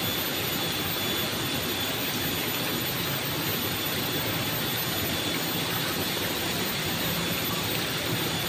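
Steady rushing noise of flowing river water, even and unbroken, with a faint high steady tone above it.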